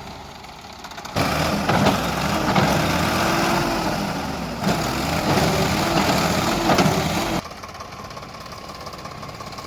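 Heavy diesel machinery engine working hard, its pitch rising and falling as it is revved under load; the loud stretch starts abruptly about a second in and drops back to a quieter running hum about seven seconds in.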